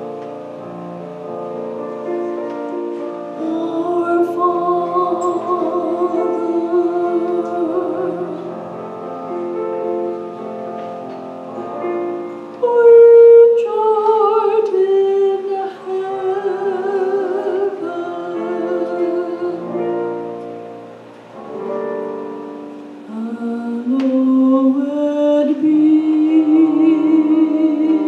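A woman singing a solo with vibrato over an instrumental accompaniment. The accompaniment plays alone at first, and the voice comes in about three seconds in, after which it grows louder.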